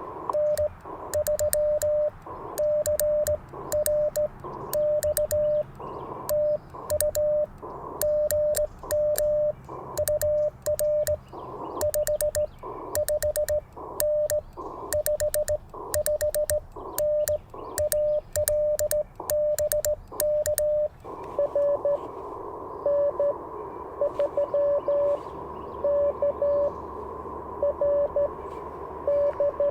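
Morse code on an Icom IC-705 transceiver: for about twenty seconds its sidetone beeps out dits and dahs at one steady pitch, with sharp clicks from the N3ZN ZN-SS paddle and receiver hiss between characters. Then the sending stops and steady band hiss comes up, with another station's Morse coming back in fainter beeps.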